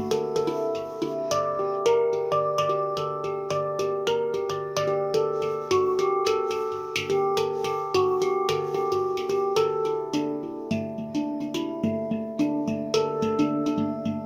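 Taopan Mini handpan in the Dimelodia Extended scale played by hand: a flowing run of struck steel notes, several a second, each ringing on under the next. Lower notes join in about ten and a half seconds in.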